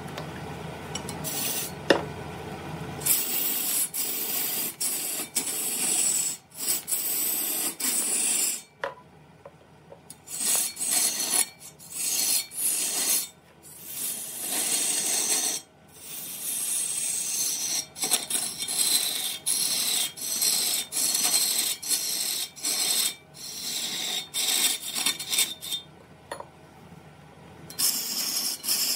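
Repeated hand scraping strokes of a file-like abrasive tool, scratchy and high, each about a second long with short breaks between. A low hum and a single sharp knock come in the first few seconds before the stroking starts.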